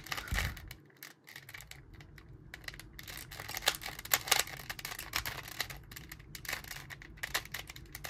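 A 19-year-old Rubik's brand 3x3 cube being turned by hand during a solve, with a run of quick, irregular plastic clicks and clacks as the layers turn. The cube turns stiffly and is very loud, as an old, worn cube can be.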